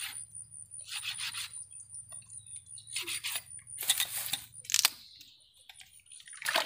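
A metal knife blade scraping the leg of a goat carcass in several short strokes, with a sharp click about five seconds in.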